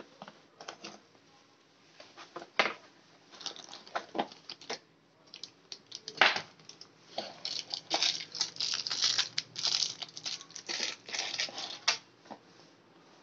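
Cardboard box flaps and plastic packaging being handled while a dome camera is unpacked: a run of scrapes, crinkles and knocks, sparse at first and busiest in the second half, stopping shortly before the end.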